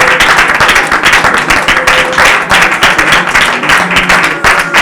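A congregation clapping: a dense, steady clatter of many hands.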